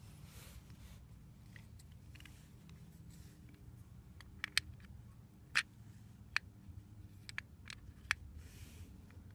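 Metal clicks and clinks as a steel variator collar is handled and slid into the hub of a scooter's variator plate, about eight sharp taps in the second half, the loudest a little past the middle.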